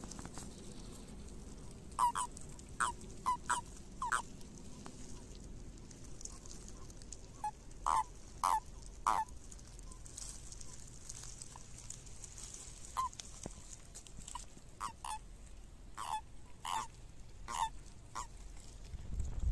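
Common toads in a mating tangle giving short, croaking calls, about fifteen of them scattered irregularly and often in quick pairs or threes. These are the release calls that males give when clasped by another male.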